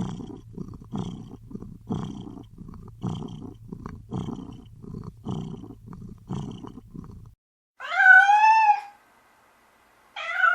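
A cat purring in a steady rhythm of low pulses, about two a second, which cuts off after about seven seconds. Then a cat meows once, a long meow that rises and falls in pitch, and a second, shorter meow starts right at the end.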